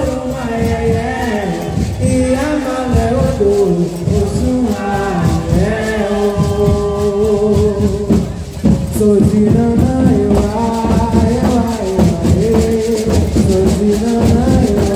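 Live music from a big stage's sound system: singing over steady percussion.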